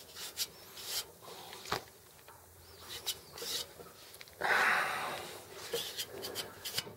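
A hand rubbing and wiping a grimy data plate on a boiler's metal casing, cleaning it so it can be read. It makes scattered scuffs and clicks, with one longer, louder rushing rub about four and a half seconds in.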